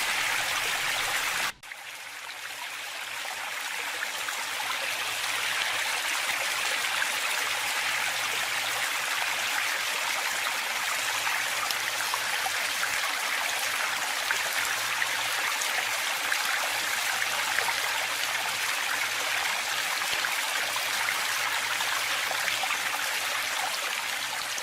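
Rushing water from a waterfall sound recording: a steady, even hiss of falling water. It cuts out for an instant about a second and a half in, rises back over the next few seconds, and begins fading out near the end.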